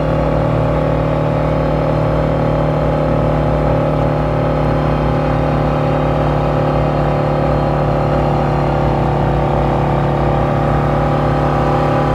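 Small boat motor pushing a kayak across open water, running at a steady pitch and speed.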